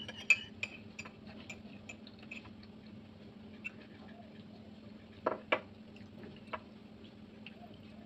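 Scattered light clinks and taps of utensils and a ceramic cup against a plate and table, with a sharp clink just after the start and two louder knocks a little after five seconds. A steady low hum runs underneath.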